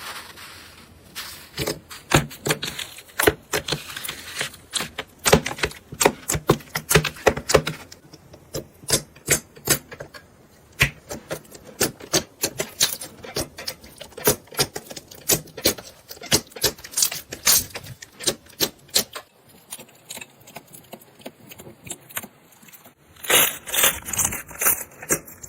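Slime being squeezed and pressed by hand, giving dense, irregular crackling and popping clicks like crunchy slime, with a short quieter stretch late on before a loud run of crackles near the end.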